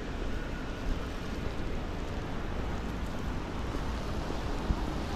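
Steady city street ambience: a low, even rush of distant traffic.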